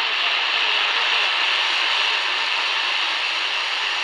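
Steady shortwave static hissing from the speaker of a Tivdio V-111 portable radio, tuned to a frequency with no station coming through.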